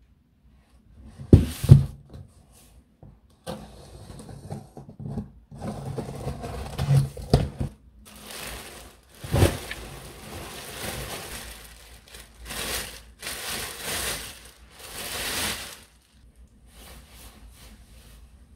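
Unboxing a parcel: a cardboard box knocked down hard twice, then a box cutter and cardboard scraping and tearing as the box is opened, then a clear plastic bag crinkling and rustling in long bursts as a wool coat is pulled out of it.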